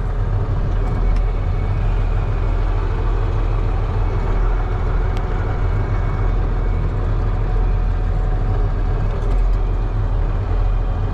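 Tractor engine running at a steady speed, a constant low rumble.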